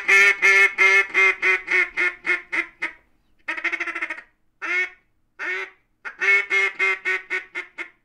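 Blue Bird double-reed duck call blown in quacks, high-pitched and loud. It opens with a long run of about three quacks a second that tapers off, then comes a short burst, two single quacks, and another run of quacks near the end.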